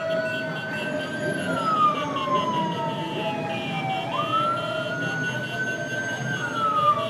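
Siren wailing in slow cycles of about four seconds, twice: each cycle rises quickly, holds high, then slides slowly down. A steady hum and rumble run beneath it.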